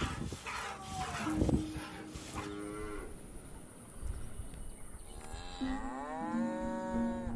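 A cow mooing twice: a shorter moo about a second in, then a longer moo that rises in pitch and holds steady from past halfway.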